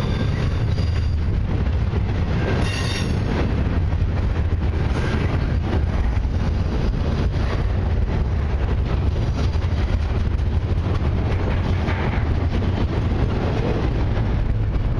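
Double-stack intermodal freight train's container well cars rolling past close by: a steady loud rumble of steel wheels on rail, with a short wheel squeal about three seconds in.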